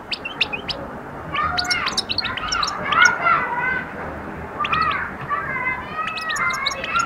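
A caged European goldfinch singing: scattered chirps in the first second, then two runs of rapid twittering and trilled notes separated by a short pause. It is the start of the bird's song.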